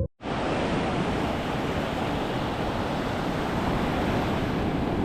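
Ocean surf washing onto the beach, a steady rush of noise, with some wind on the microphone. It cuts in abruptly after a split-second gap.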